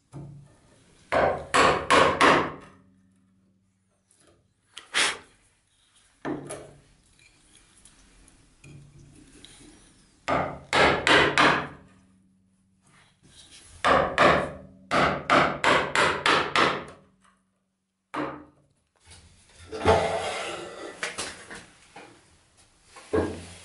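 A chisel struck with a mallet, chopping out a mortise in wood: groups of quick, sharp knocks a few at a time, a longer run of about eight, and single blows between. Near the end there is a longer scraping stretch of chisel work in the cut.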